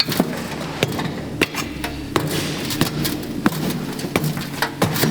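Repeated hammer blows knocking apart a sand casting mould to free a freshly poured bronze casting: sharp knocks at irregular spacing, several a second at times.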